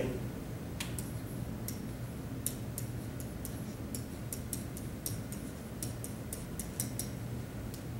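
Light, irregular clicks and taps: calculator keys being pressed and a stylus tapping an interactive whiteboard as digits are written. A steady low room hum lies beneath them.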